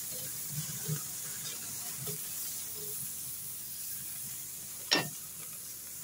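Steaks sizzling on a grill grate over open flames: a steady hiss. One sharp snap about five seconds in.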